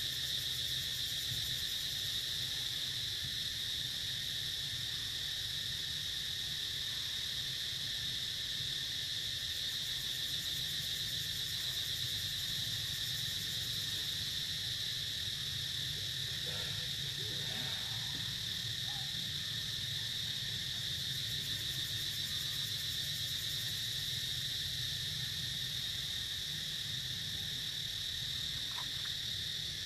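Steady, high-pitched insect chorus, with a low steady hum underneath.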